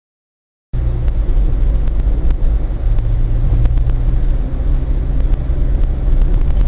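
Steady low rumble of a car's engine and tyres heard from inside the cabin by a dashcam while driving. It starts abruptly just under a second in, after silence.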